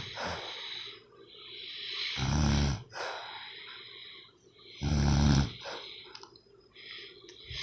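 A person snoring: two long, low buzzing snores about two and a half seconds apart, with softer hissing breaths between them.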